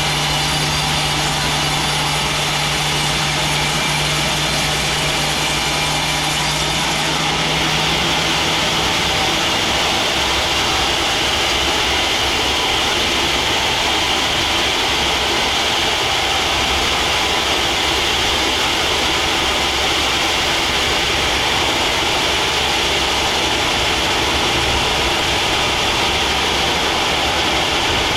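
Sawmill saw running steadily and cutting through a large teak log. About eight seconds in, a low hum drops away and a higher cutting hiss grows stronger.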